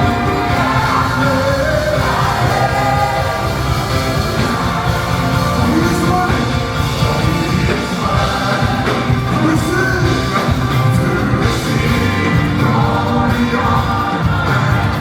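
Live worship music: a band playing with a singing voice over a steady beat.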